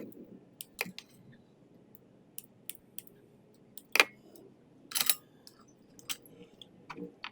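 Scattered light clicks and rustles of artificial foliage stems being handled and tucked into a grapevine wreath, the sharpest click about four seconds in.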